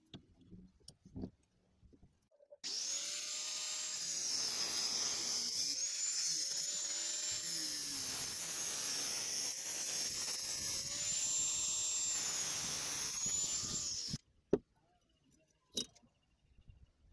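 Angle grinder with a cut-off disc cutting through a metal tube, with a steady high whine that sags a little in pitch every few seconds as the disc bites. It starts abruptly a couple of seconds in and stops abruptly near the end. Before it there are a few light knocks from handling the tube in the vise, and after it a sharp knock and small clicks.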